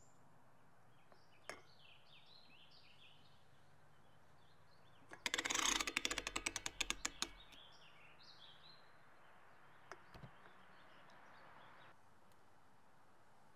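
Small birds chirping and singing in the background, with a rapid run of sharp clicks lasting about two seconds midway, the loudest sound, and a few light knocks later on.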